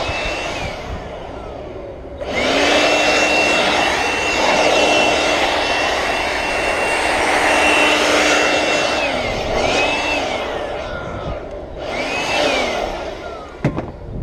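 Handheld electric power cutter slicing through windshield urethane: its motor spins up about two seconds in, runs steadily for about seven seconds, winds down, then runs again briefly. A couple of sharp knocks near the end.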